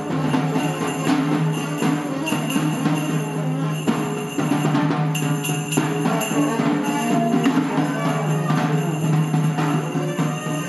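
A small band playing on the move: brass and saxophone over a steady held low note, with percussion strikes throughout.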